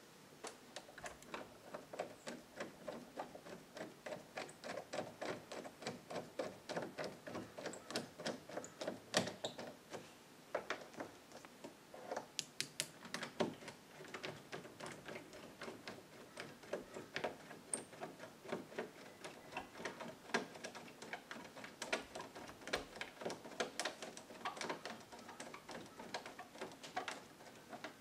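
Screwdriver driving a doorknob's mounting screws: a steady run of small metal clicks, several a second.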